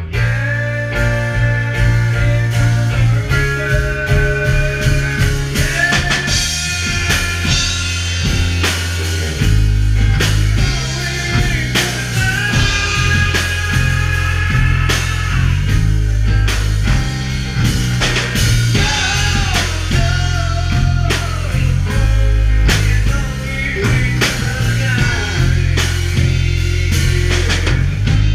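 A rock band playing live: electric guitar, bass guitar and a drum kit, with a man singing into a microphone. The bass holds long low notes that change every second or two under steady drum hits.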